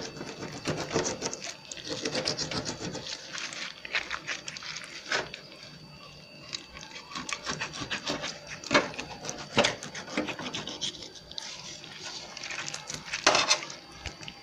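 Knife cutting along the back of a raw mackerel while rubber-gloved hands handle the fish: irregular scraping and rubbing, with a few sharp clicks.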